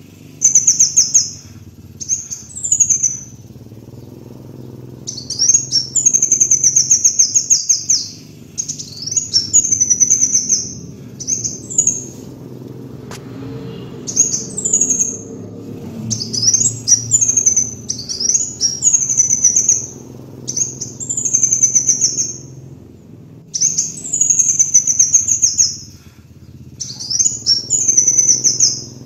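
Kolibri wulung sunbird singing: high, rapid twittering phrases of a second or two, repeated again and again with short pauses between them, over a faint low hum.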